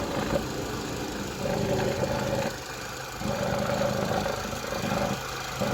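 Vauxhall Meriva 1.4 petrol engine idling steadily, now running without a misfire, with a rattle that the owner points out. The level drops and comes back up a couple of times.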